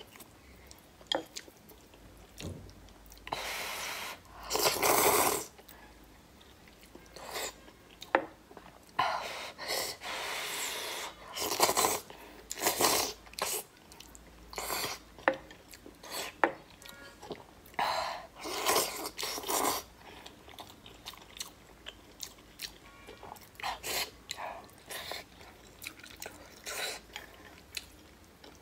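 Close-up eating sounds of noodles being slurped from a bowl of broth and chewed. There are several noisy slurps about a second long, with many short wet clicks and smacks between them.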